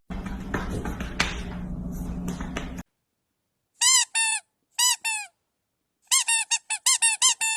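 A squeaky rubber toy squeaked in short bursts: two squeaks, two more a second later, then a quick run of squeaks near the end. Before them comes a couple of seconds of low hum with faint knocks.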